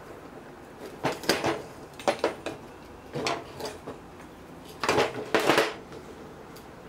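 Pliers and metal parts of an old timing relay clinking and knocking in four short bursts of clatter, the loudest near the end, as the mercury tilt switch is worked free.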